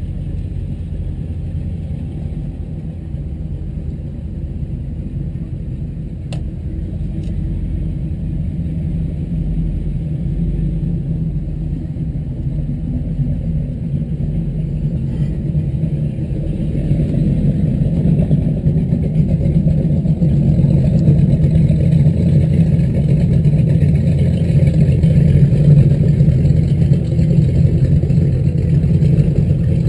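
Boat engines running at low speed, a steady low rumble that grows louder over the second half as another motorboat comes close alongside.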